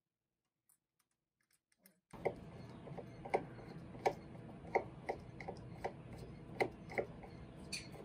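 A hand screwdriver driving a screw into a steel lock mounting plate on a door, starting about two seconds in with a series of sharp clicks roughly every half second to second as the screw is turned.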